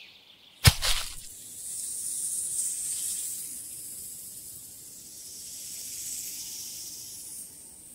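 A single deep hit just under a second in, then a high, airy hiss that swells, dips and swells again before fading out near the end: a music video's closing sound effect after the song has stopped.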